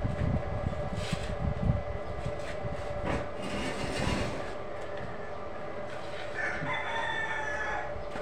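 Knocks and rattles of a welded steel-mesh frame being turned over and handled. About six and a half seconds in, a rooster crows once, for about a second.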